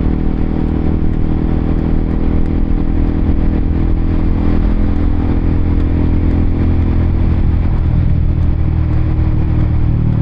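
Honda CBR K45R motorcycle engine running at a steady cruise, with wind rushing past. The revs fall away over the last couple of seconds as the throttle eases off.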